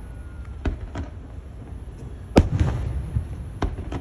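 Fireworks going off: a handful of sharp bangs, the loudest about two and a half seconds in, each followed by a low rumbling echo.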